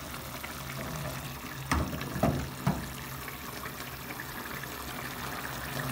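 Stew simmering in a pot on a gas burner: a steady bubbling hiss, with three sharp knocks about two seconds in.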